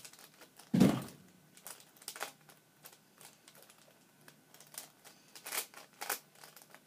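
Plastic speed cube being turned by hand: irregular clicking and clacking of the layers, with a louder dull thump about a second in and a quicker run of clicks near the end.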